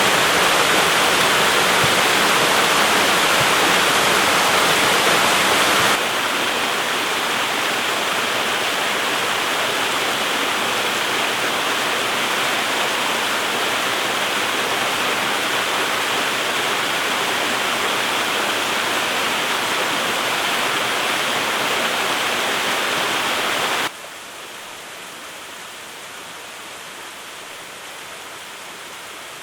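Waterfall: a steady rush of falling water. The level drops abruptly twice, first a little about six seconds in, then sharply about 24 seconds in, as the sound cuts between recordings.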